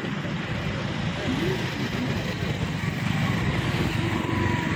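Steady road traffic noise from vehicles crossing a bridge, a continuous low rumble with faint voices in the background.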